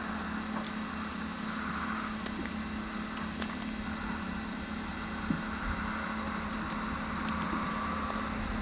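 Conrail diesel locomotives approaching in dynamic braking as the train drifts downgrade: a steady engine drone with a higher whine over it, growing slightly louder near the end, with a few faint clicks.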